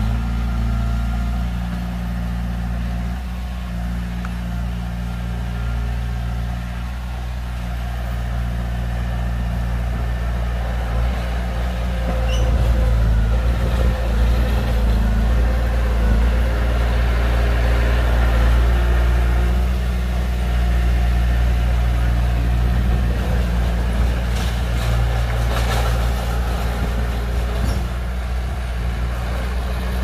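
Heavy diesel engine of earth-moving machinery running steadily with a deep hum, growing louder about twelve seconds in. A few faint knocks come near the end.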